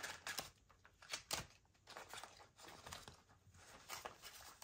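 Faint rustling and light clicks of paper cards being shuffled by hand and tucked into a ring-binder planner, in short irregular bursts.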